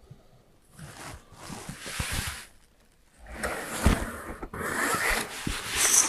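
Pencil scratching along a straightedge on a painted steel roofing sheet as a line is drawn, in two stretches of rubbing, with a few soft knocks of the ruler against the sheet.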